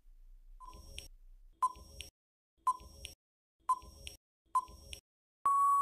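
Quiz countdown timer sound effect: five short beeps about a second apart, then a longer steady beep at the same pitch near the end, signalling that time to answer is up.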